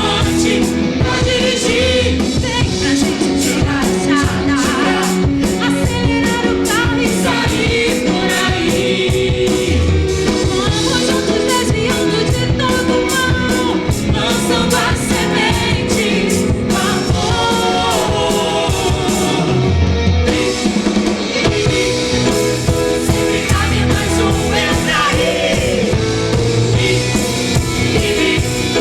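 Upbeat Christian children's song with singing over a band with a drum kit, keeping a steady beat.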